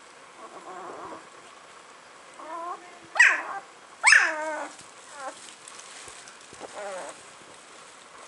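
Newborn puppies whining and crying: a string of short, wavering, pitched cries, the two loudest in the middle, with fainter ones before and after.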